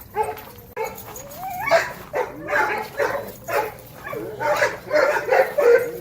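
Dogs barking and yipping in a quick string of short calls, with a rising whine about a second and a half in; the barks get louder from there on.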